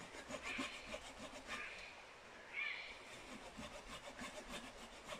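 A hand saw cutting wood in slow, even strokes about a second apart, three of them in the first few seconds, with light rustling over them.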